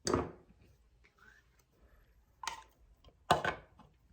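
Three short, sharp knocks of kitchen items being handled on a counter: the loudest right at the start, two more about two and a half and three and a quarter seconds in.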